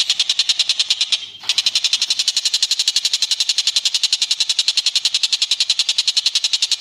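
A songbird's rapid, unbroken trill of sharp, high notes, about a dozen a second, with a brief break about a second in.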